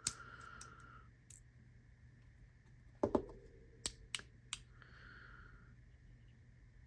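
Small hard parts of an EDC fidget toy clicking as it is handled. A sharp click at the start is followed by a short ringing, then a cluster of clicks comes about three seconds in, with a few single clicks after.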